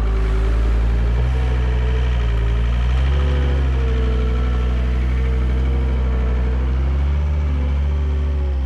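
Excavator's diesel engine running steadily, its pitch shifting slightly a few times.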